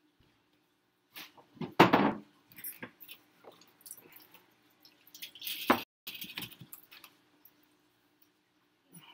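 Kitchen handling noises: a loud knock about two seconds in, a loud scraping rustle near the middle, and scattered light clicks and clinks, over a faint steady hum.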